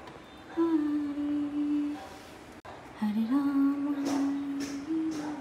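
A voice humming a slow tune in long held notes, broken by a short pause about halfway through.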